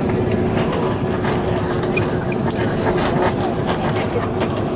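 Cabin noise of an Airbus A330 rolling down the runway after touchdown: a steady rumble with a held hum and light rattling clicks.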